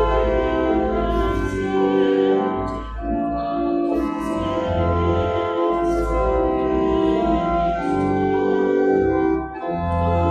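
Church organ playing a hymn, with many voices singing along in sustained chords: the entrance hymn at the opening of Mass.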